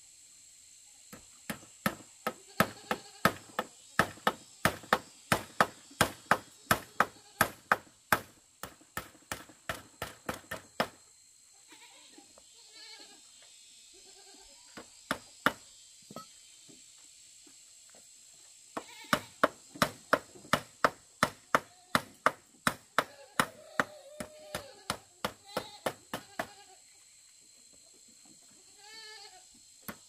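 Rapid hammer blows on wood, about three a second, in two long runs with a pause of several seconds between them. Short animal bleats come in the pause and near the end.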